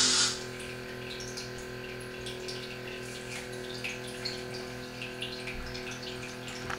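Guitar music cuts off abruptly just after the start. A steady low electrical hum follows, with faint scattered ticks and clicks over it.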